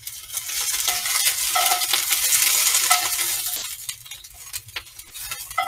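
Whole scallions sizzling in a very hot cast-iron skillet as they are turned with metal tongs, with light clicks and scrapes of the tongs against the pan. The sizzle swells, then dies down after about three and a half seconds as the scallions sear and char.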